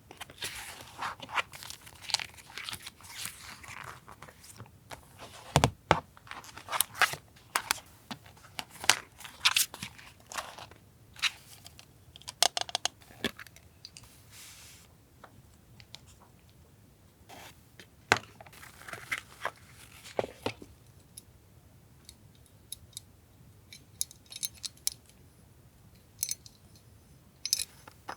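Paper and plastic stationery packaging being handled and unwrapped by hand: crinkling and rustling with sharp taps and clicks, coming in bursts with short quiet spells between.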